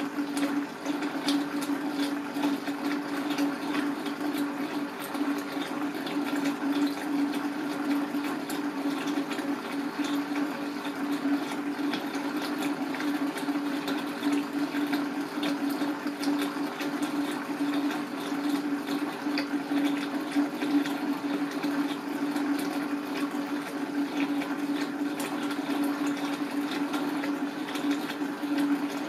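A steady mechanical hum with a constant crackling, watery hiss over it.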